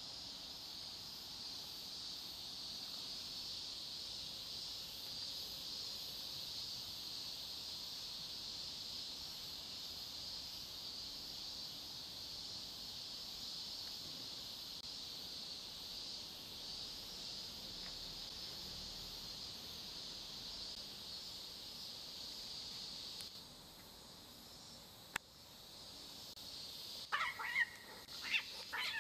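A steady, high-pitched insect chorus that drops away near the end. Then, in the last two seconds, cats fighting: loud, wavering yowls and screeches.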